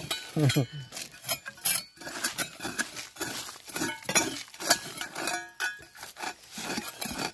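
Irregular metallic clinks, taps and scrapes, a dozen or so short knocks, a few of them ringing briefly, like metal utensils or small hard objects knocking against a metal container.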